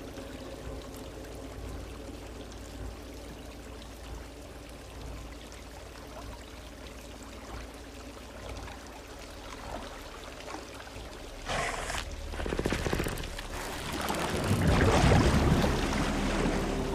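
Water trickling quietly in a flooding basement, then from about eleven seconds in a loud rush of pouring, splashing water that swells and is loudest near the end.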